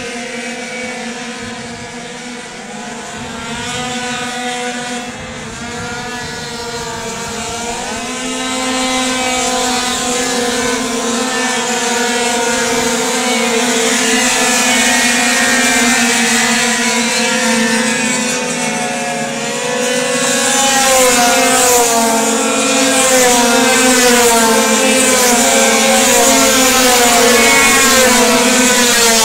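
A pack of racing scooters lapping a circuit, several engines at high revs at once, their pitches sliding up and down as they brake and accelerate. The sound grows steadily louder, loudest in the last third.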